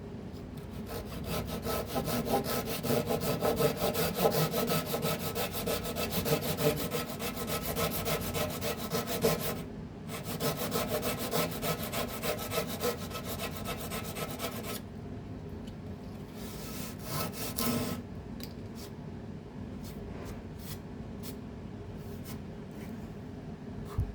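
Suizan Japanese pull saw cutting wood in fast, even strokes. It stops briefly about ten seconds in, then starts again. From about fifteen seconds in the sawing turns quieter and sparser, with scattered short strokes.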